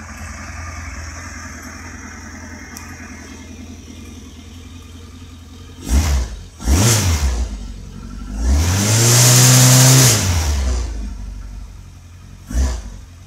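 Kawasaki GPZ1100F inline-four on CR carburetors idling, then revved: two quick blips about six seconds in, then a longer rev that rises, holds briefly and falls back to idle, and another short blip near the end.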